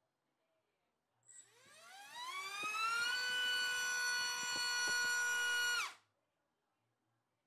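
BrotherHobby Tornado T1 2205-2500KV brushless motor spinning a DYS 5040 three-blade propeller on 4S, run to full throttle on a thrust stand. A whine starts about a second in and rises steeply in pitch, holds steady at full power for nearly three seconds (around 29,500 rpm), then cuts off sharply.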